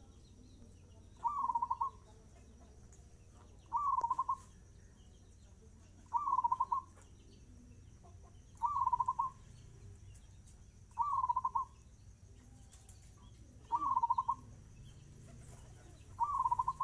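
Zebra dove (perkutut) cooing its song at a fast tempo: a short rolling coo phrase repeated evenly about every two and a half seconds, seven times.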